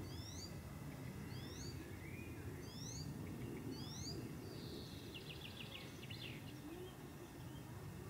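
Wild birds calling in the background: a short rising call note repeated four times, about once every second and a bit, then a quick rapid trill about five seconds in, over steady low outdoor background noise.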